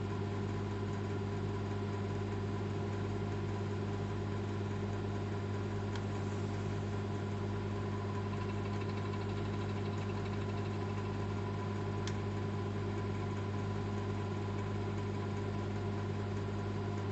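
Old microwave oven running, a steady low hum with a few higher tones layered over it and a few faint ticks.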